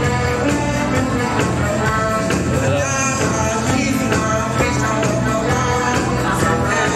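Live music on an electronic keyboard with a steady beat, and a woman singing into a microphone over it.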